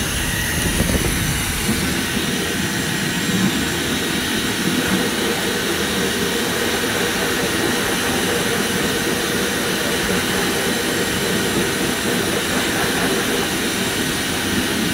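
Hair dryer blowing steadily on a long-haired chihuahua's fur.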